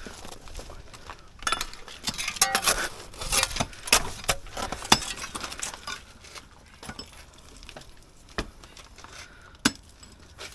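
Hard objects clinking and clattering as they are handled, a quick run of taps and knocks over the first few seconds, thinning to a few single clicks.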